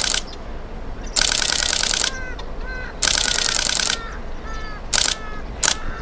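Camera shutter firing in fast continuous bursts: three runs of about a second each, then two short bursts near the end. Between the bursts, birds give short repeated calls.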